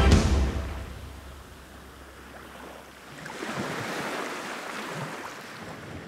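Waves washing onto a stony shore, one wave surging in about three seconds in and ebbing away. The tail of background music fades out at the start.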